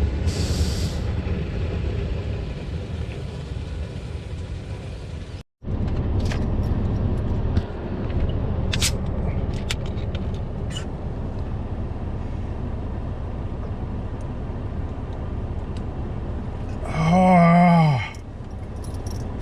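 Car cabin noise while driving: a steady low road and engine rumble with a few light clicks. It drops out briefly about five seconds in, and near the end a man's voice sounds loudly for about a second.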